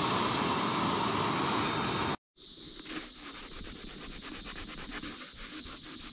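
Heat gun blowing hot air onto a plastic car bumper to soften a dent: a loud, steady hiss that cuts off about two seconds in. A quieter hiss follows, with a quick run of scratchy strokes as a rag is rubbed over the heated plastic to cool it and set it in place.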